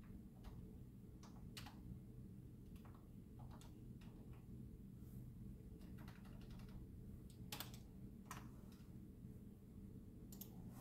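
Slow, sparse typing on a computer keyboard: faint, irregular key clicks about once a second, over a steady low hum.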